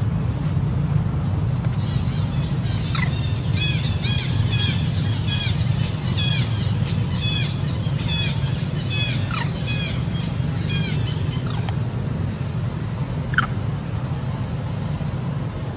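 A bird chirping repeatedly, a quick series of high notes for several seconds, with one sharp falling call near the end, over a steady low rumble.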